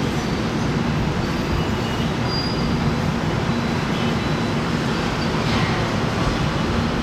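Steady road-traffic noise from cars and motor scooters passing through a busy city intersection, a continuous even wash without any single standout event.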